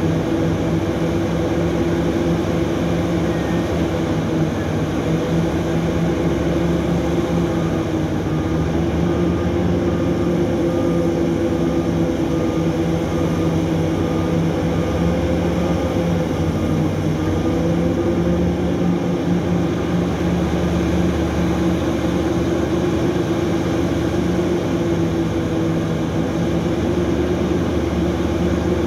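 Heavy diesel engines of a Hitachi EX3600 mining excavator and the haul truck it is loading, running steadily under load as the excavator digs, swings and dumps: a continuous deep drone whose pitch wavers slightly as the machine works. A faint repeated beeping sounds for several seconds in the middle.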